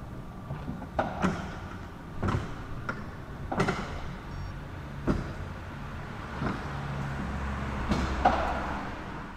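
Sectional garage door opening: a run of clunks and rattles as the panels travel up their tracks. A steady low hum joins about halfway through.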